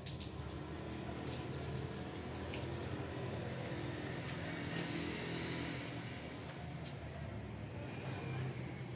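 Cats eating from plastic plates, with faint wet chewing clicks over a steady low background rumble.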